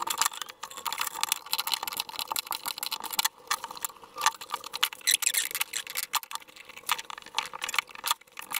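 Metal hand tools working the end of a steel brake line as it is readied for flaring: a dense, irregular run of scraping and small metallic clicks, over a faint steady hum.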